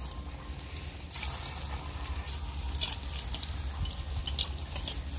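Breaded potato cheese balls deep-frying in hot oil in a karahi: a steady sizzle with scattered crackles and pops. The sizzle grows louder about a second in.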